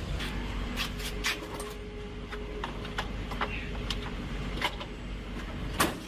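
Irregular sharp clicks and taps, roughly one or two a second, over a low steady hum, with one louder knock near the end.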